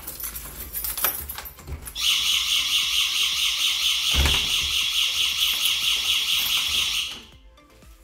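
Door handle clicking as the front door is opened, then a small 12-volt alarm siren, set off by the door opening, sounds loud and steady at a high pitch for about five seconds before cutting off. A dull thump comes partway through.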